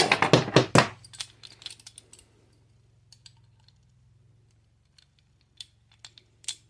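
Small metal tool clicks and clinks from a socket wrench and pliers being worked on an engine stud. A quick run of sharp clicks comes in the first second, then scattered light clicks.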